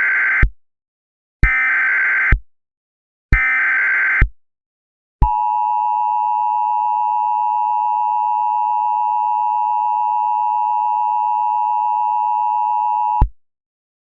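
Emergency Alert System header: three short SAME data bursts about a second apart, then the steady two-tone EAS attention signal, held for about eight seconds before it cuts off. This is the signal that an emergency alert is about to be broadcast.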